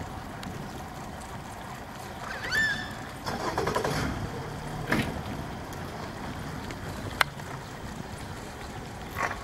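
Steady wind and water noise from a small boat drifting on a river. A short whistle rises and then holds a little over two seconds in, and a single sharp click comes about seven seconds in.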